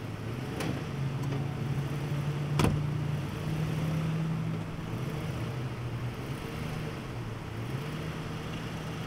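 Ford F-150 pickup engine running at low revs under load during a tow-strap pull out of soft sand, its pitch rising and falling a couple of times. A single sharp knock about two and a half seconds in.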